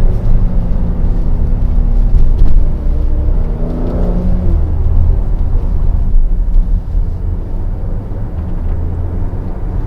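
The Mercedes-AMG GLC 43's twin-turbo six-cylinder engine heard from inside the cabin: its pitch falls as the car slows, rises and drops again briefly about four seconds in, then settles into a steady low drone.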